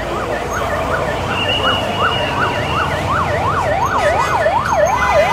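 Ambulance siren in fast yelp mode, its pitch rising and falling several times a second, the sweeps growing wider about halfway through and louder toward the end as it draws near. Low rumble of stalled traffic underneath.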